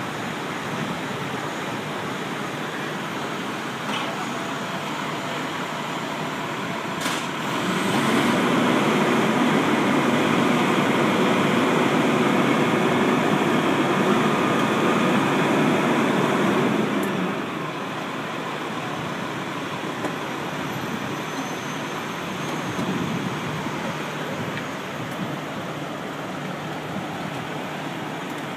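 Fire truck's engine running steadily as its aerial ladder platform is raised, growing noticeably louder for about nine seconds in the middle before settling back.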